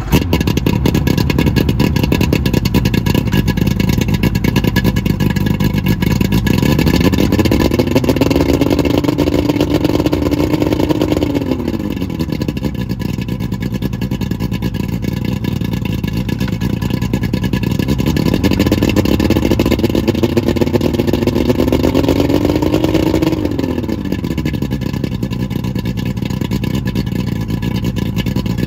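Johnson 90 HP outboard motor running on a garden hose out of the water, idling steadily and revved up twice. Each time the pitch rises over a couple of seconds, holds briefly, then drops back to idle.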